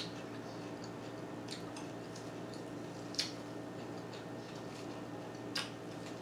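Eating tossed salad with a metal fork: a few short, sharp clicks of the fork in the bowl and small wet chewing sounds, over a steady low room hum.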